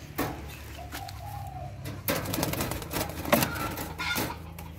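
Caged grey-headed swamphen giving short, low calls. From about two seconds in there is a burst of scuffling and knocks, with the bird calling through it.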